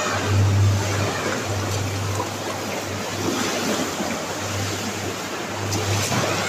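Leftover test waves in a towing tank sloshing and lapping against the tank wall and the deployed wave-absorbing beach panels, a steady rushing wash of water, with a low hum underneath that swells and fades.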